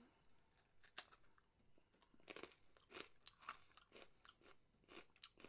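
Mouth crunching on a thin, hard octopus senbei cracker: one sharp crack as a piece is bitten off about a second in, then a run of crisp crunches as it is chewed.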